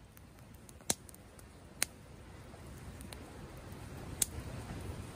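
Wood campfire crackling: a few sharp pops, about a second in, near two seconds and again past four seconds, among fainter ticks.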